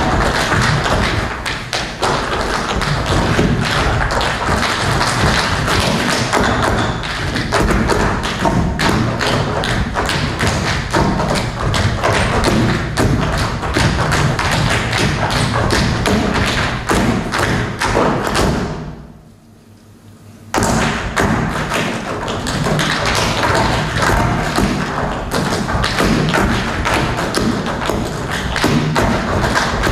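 Rapid rhythmic percussive footwork: a group of dancers' hard-soled shoes striking a stage floor together, over music. The sound drops away for about two seconds past the middle, then starts again suddenly.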